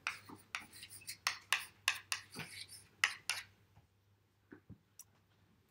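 Chalk writing on a blackboard: a quick, irregular run of sharp taps and short scrapes that stops about three and a half seconds in, followed by a few faint clicks.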